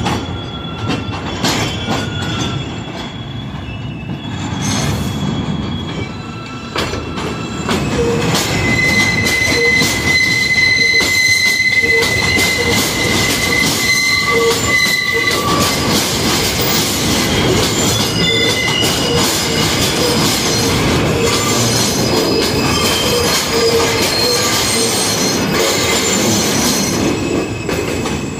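New York City subway train running along an elevated steel structure, its rumble mixed with high, steady steel-wheel squeal. It gets louder about eight seconds in, and the loudest squeal tone holds for several seconds.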